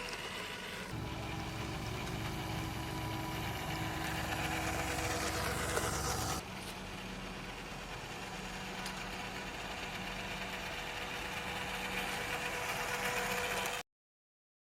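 Electric motor and gear drive of an MN128 1/12 scale RC Jeep crawler running, with a heavier low rumble from about a second in that drops away after a few seconds. The running sound then carries on steadily and cuts off abruptly near the end.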